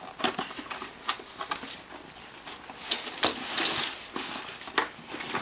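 Cardboard being handled: scattered light taps, scrapes and rustles, with a longer rustle about three and a half seconds in.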